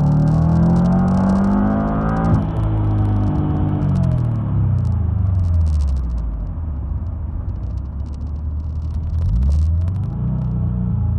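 Supercharged Subaru EJ25 four-cylinder engine revving up under acceleration, then dropping off abruptly a little over two seconds in and winding down in pitch; it picks up again near the end. The engine has a bog under boost that the owner traced to an oversized water-methanol injection nozzle.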